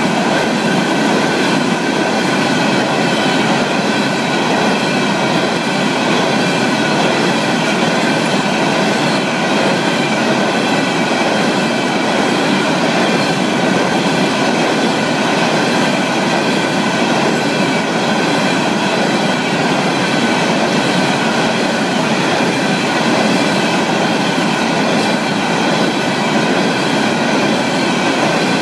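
Loaded coal hopper cars of a freight train rolling past a grade crossing at close range: a steady, loud rumble of wheels on rail, with several steady high-pitched tones over it. The cars' wheels are free of flat spots and run smoothly, so no rhythmic pounding.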